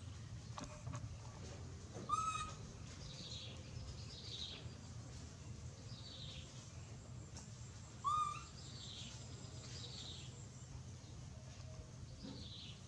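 Birds calling: a run of short falling chirps, with two louder short pitched calls about six seconds apart, over a steady low hum.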